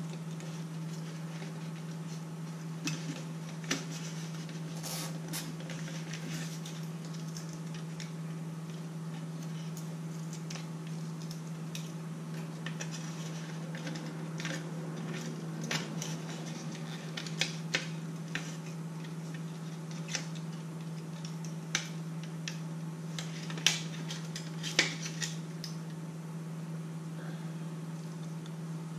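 Scattered light clicks and taps of plastic drone parts and wiring being handled during disassembly of a Yuneec Typhoon H hexacopter, with two sharper clicks late on, over a steady low hum.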